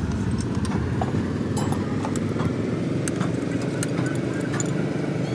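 Truck diesel engine fitted with an inline injection pump idling steadily with an even, rapid clatter. A few light metallic clinks of hand tools are heard on top.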